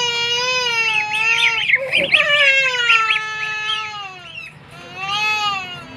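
Goslings peeping: long, wavering high calls that overlap one another, with a flurry of quick short chirps between one and three seconds in.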